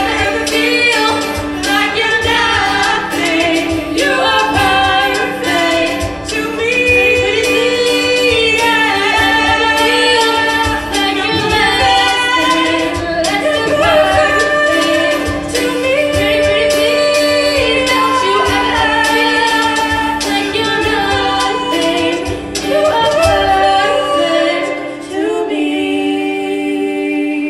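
All-female show choir singing a pop song in close harmony over a steady beat. About 24 seconds in, the beat and bass drop out, leaving only the voices.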